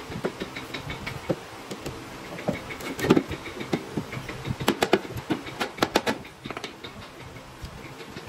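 Irregular knocking and clattering over a steady low hum, with the loudest knocks about three seconds in and a dense run of them around five to six seconds.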